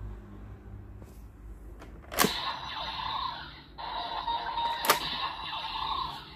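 Gotchard Driver toy belt: a sharp click about two seconds in sets off electronic sound effects and music from its speaker, and a second click near five seconds sets them off again.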